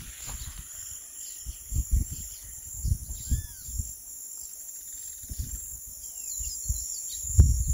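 Birds chirping, a few short arched calls, over irregular low rumbles and thuds that grow louder near the end.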